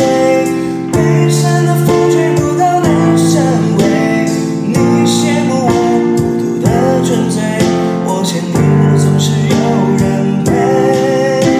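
Background song: a voice singing over guitar accompaniment.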